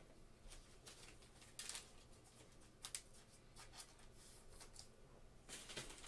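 Faint rustles and a few light ticks of a trading card being handled and slid into a clear plastic sleeve, with a slightly longer rustle near the end.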